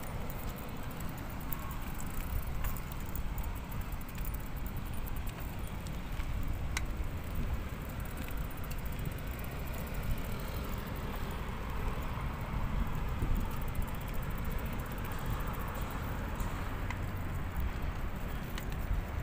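Steady rumbling noise of a bicycle being ridden, with wind on the microphone and tyre noise, and a few light clicks and rattles.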